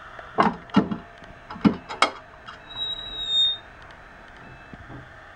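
Metal clicks and knocks as the locking knob on a Royal commercial vegetable slicer's aluminium cover is undone and the cover swung open on its hinge. A short, high squeak follows a little past the middle.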